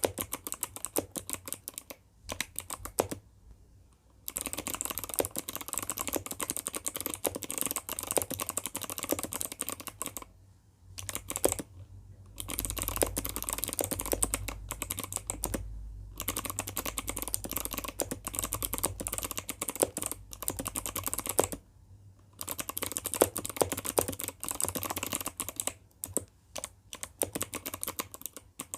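Typing on an ABKO ADK05 mechanical keyboard fitted with clicky Kailh Box White switches and freshly lubricated stabilizers: fast runs of clicking keystrokes broken by a few short pauses.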